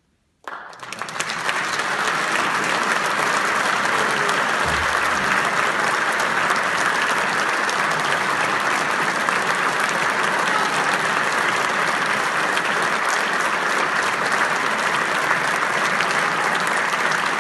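Audience applauding: after a brief silence the clapping breaks out suddenly about half a second in, swells within a second or so, and then holds steady.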